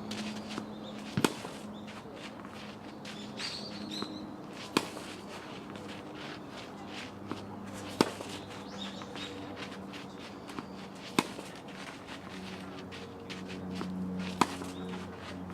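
Tennis balls struck by racket in a fed-ball drill: five sharp hits about every three seconds, with fainter ball bounces and clicks between them over a low steady hum.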